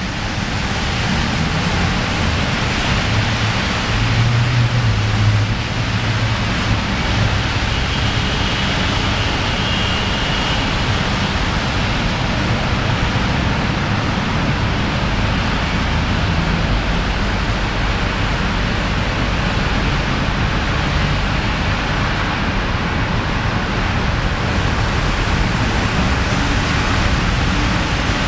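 Steady hiss of traffic, tyres running through water on flooded streets below, with a low rumble swelling briefly about four seconds in.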